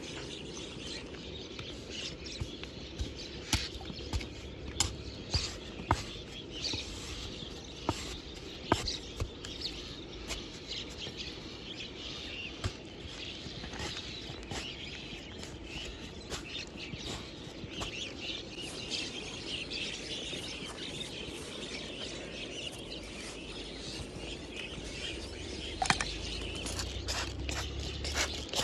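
A small metal trowel scraping and picking at a packed dirt bank, with soil crumbling and falling in scattered ticks and knocks, and birds chirping in the background. Near the end a trigger spray bottle squirts water onto the dirt.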